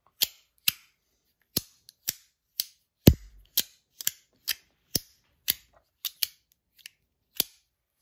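Compoform V1.1 slider fidget worked back and forth in the hand, its two metal plates snapping into place with sharp clacks, about two a second, the loudest about three seconds in.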